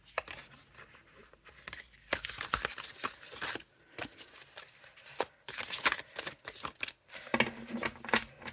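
A deck of tarot cards shuffled by hand, in several bursts of rustling card sounds with short pauses between.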